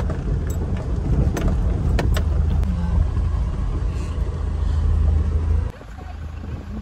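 Toyota HiAce van heard from inside the cabin, driving slowly over a rough dirt track: a steady low rumble from engine and tyres, with a few sharp knocks and rattles in the first couple of seconds. About a second before the end it cuts off abruptly to a much quieter outdoor background.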